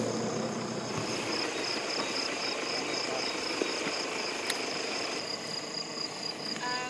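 Crickets chirping steadily in a high, fast-pulsing trill, over a low engine hum that is strongest in the first second.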